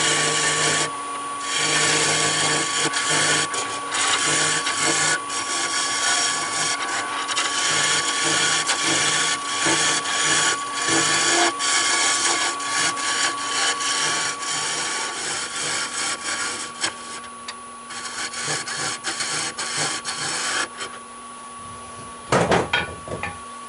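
Wood lathe running with a steady whine while a carbide hollowing tool cuts into the spinning olive-wood blank, scraping in uneven bouts. The cutting stops for the last few seconds, leaving the lathe running, and then comes one short, loud burst.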